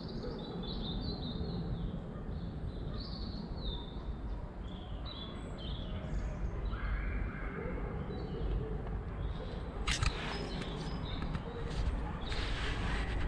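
Small birds chirping over a steady low background rumble. Near the end there are a few sharp clicks and rustles of handling noise.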